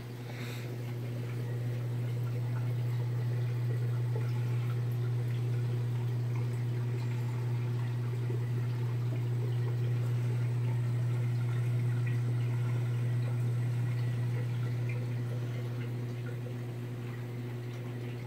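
Nano reef aquarium's filtration running: a steady low pump hum with water trickling in the filter. It grows louder over the first two seconds and eases off a little near the end.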